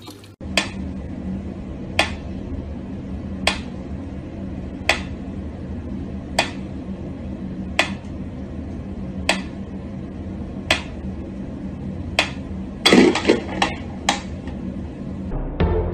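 Mechanical pendulum metronome ticking slowly and evenly, one sharp tick about every second and a half, over a steady low hum. Near the end comes a quick burst of louder clattering knocks.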